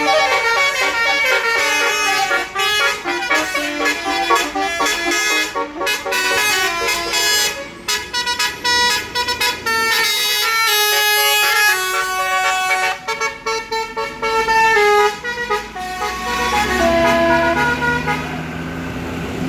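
Tour bus's basuri musical horn, an electric multi-trumpet telolet horn, playing a fast melody of short notes one after another. A lower rising tone comes in underneath near the end.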